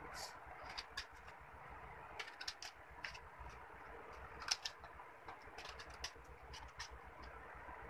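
Small scissors snipping through a sheet of paper in short, irregular clicks, the sharpest about four and a half seconds in, over a faint steady hiss.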